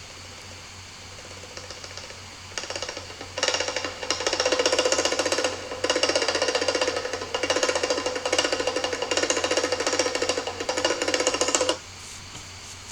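A recorded Indian classical instrument sample played back through the app: rapid, dense repeated strokes over a few held tones, starting about two and a half seconds in, louder a second later, and cutting off suddenly near the end.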